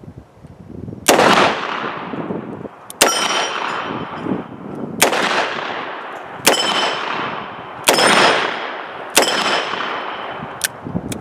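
Smith & Wesson Model 19 .357 Magnum revolver fired six times at an unhurried pace, about one and a half to two seconds apart, emptying its six-shot cylinder. Each shot rings out with a long echo. A small metallic click follows near the end.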